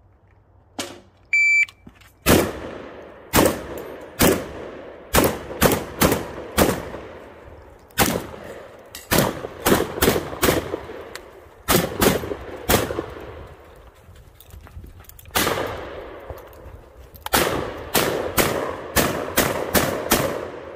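A shot timer beeps once, then a Saiga-12 semi-automatic 12-gauge shotgun fires about two dozen shots in fast strings with short pauses between them.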